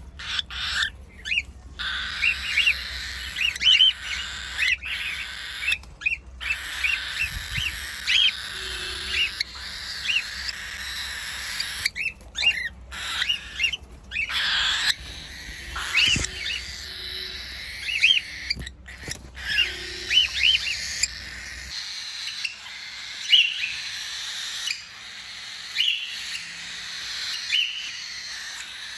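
Cockatiels chirping: short, sharp chirps repeating every second or so over the steady chatter of many birds.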